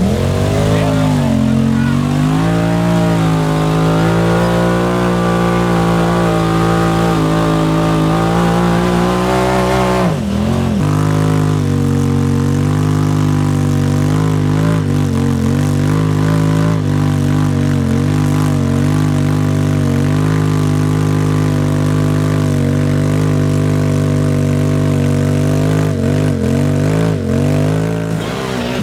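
Engine running hard at high revs, its pitch wavering up and down continuously, with a brief drop and swoop in pitch about ten seconds in.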